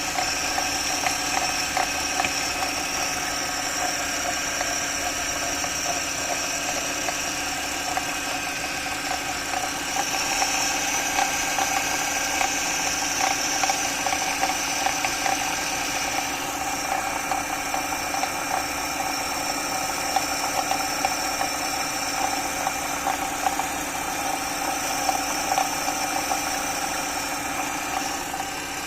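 BMW X3 E83 engine running with the power steering pump making an odd crunching rumble over a steady whine, with dense fine crackle. The reservoir cap is open, which makes the noise louder, and the owner takes the power steering system for the source of the rumble.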